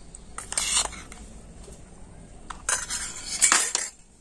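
Steel spoon scraping and clinking against a steel bowl while spooning out powdered sugar: a short scrape about half a second in, then a longer run of scrapes and clicks near the end.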